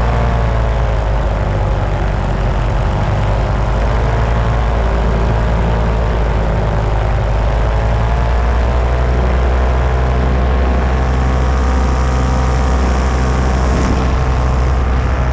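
Paramotor trike's engine and propeller running hard through its takeoff run and lift-off, a steady drone whose pitch dips and rises slightly.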